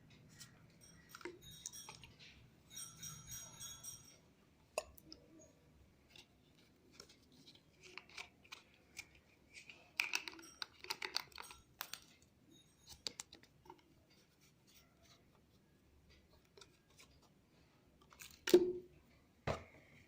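Packaging being handled: scattered clicks, taps and short spells of crinkling and rustling, with two loud knocks about a second apart near the end.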